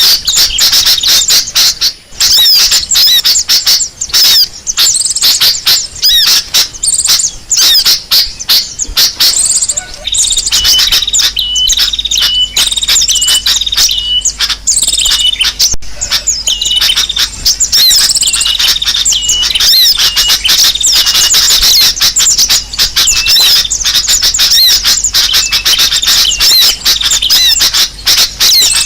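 A dense, loud chorus of many small birds chirping and twittering rapidly at once: an Indonesian 'pikat burung ribut' bird-lure recording of agitated birds, played to draw wild birds in. From about ten seconds in, one bird repeats a short note about twice a second over the chatter.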